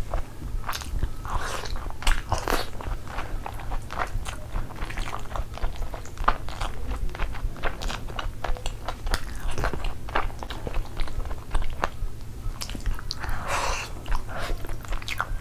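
Close-miked wet chewing and lip-smacking of chicken curry and fried rice, with many small mouth clicks throughout. A louder, longer slurping burst comes about thirteen seconds in as a sauce-coated chicken piece is bitten into.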